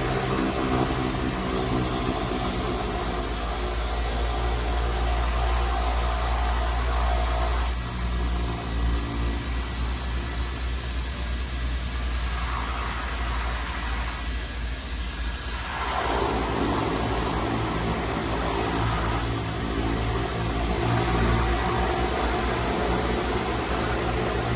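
The twin Pratt & Whitney Canada PT6A turboprop engines of a DHC-6-300 Twin Otter seaplane running, heard from inside the cockpit: a steady drone under a high turbine whine that rises and falls in pitch.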